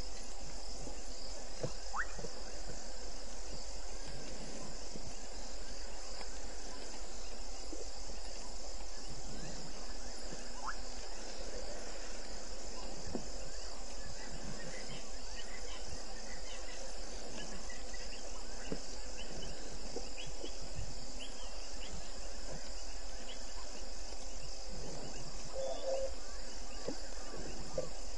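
Night insect chorus in the bush: crickets trilling in a steady, high, evenly pulsing drone, with a low hum beneath and a few faint chirps.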